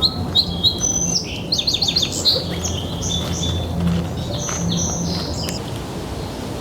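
Songbirds chirping and singing, with many short high notes and a quick run of notes about one and a half seconds in, and a low dove cooing faintly underneath.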